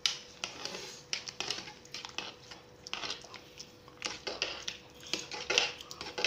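Metal spoon stirring cooked rice in water inside an aluminium pressure cooker, with irregular clinks and scrapes against the pot as the rice is loosened before the water is drained off.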